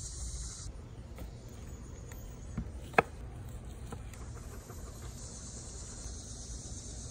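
Outdoor insect chorus: a steady high-pitched buzzing heard at the start and again from about five seconds in. A single sharp knock about three seconds in is the loudest sound.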